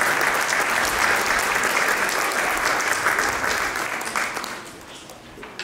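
Audience applauding, the clapping dying away about four seconds in.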